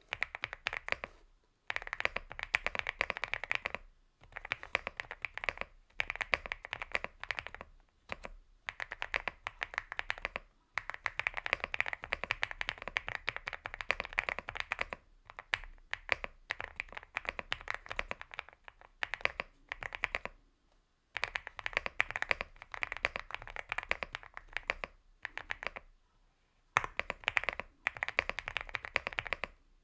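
Typing on a Leobog Hi75 75% mechanical keyboard fitted with Gateron Smoothie Silver linear switches: fast runs of keystrokes in bursts of a second or few, broken by short pauses.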